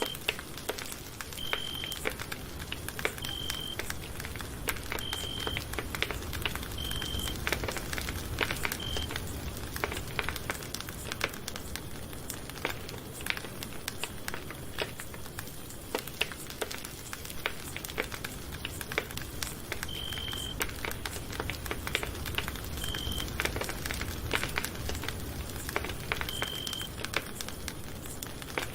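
Wood campfire crackling, with frequent sharp pops and snaps over a low rumble. A short, high electronic beep repeats about every second and a half for the first nine seconds, then sounds three more times in the last nine seconds.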